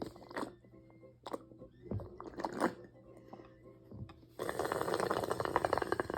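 Someone eating ramen: a few small mouth and utensil noises, then a long wet slurp of noodles or broth of about two seconds, beginning about four seconds in.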